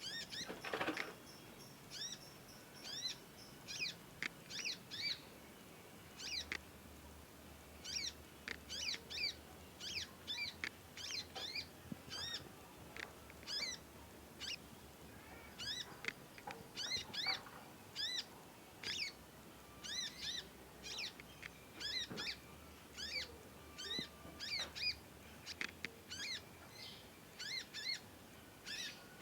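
Young conin songbird calling over and over: short, hooked, high chirps in quick runs, a juvenile still learning its song.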